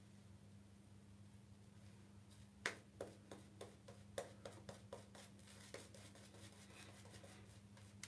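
Shaving brush working lather onto a face: soft, scratchy brush strokes, a few a second, starting about two and a half seconds in, the first the sharpest. A faint steady low hum runs underneath.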